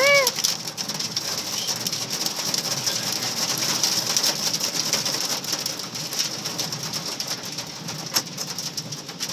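Hail and heavy rain pelting a car, heard from inside the cabin: a dense, irregular clatter of small hits over a steady hiss.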